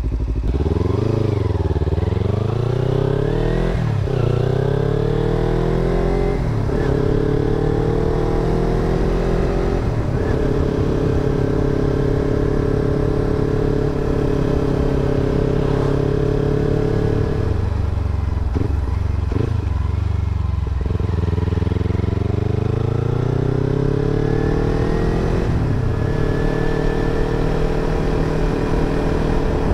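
Motorcycle engine pulling away and accelerating up through the gears, its pitch climbing and then dropping at each shift, then holding a steady cruising note. About 18 seconds in it eases off, then climbs through the gears again.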